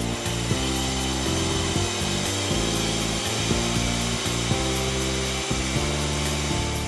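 Ramset diamond core drill running and cutting, a steady grinding noise, with background music underneath.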